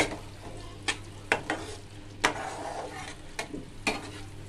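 Metal spatula stirring a thick tomato masala in a metal pan, clinking and scraping against the pan about once a second, with the masala sizzling as it fries.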